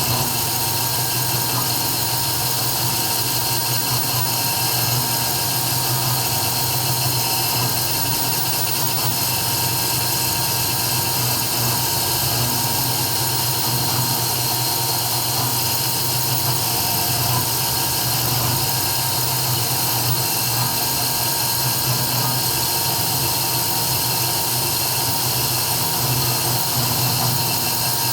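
CNC 3040 engraving machine running steadily while engraving, its spindle giving a constant high whine over a low hum.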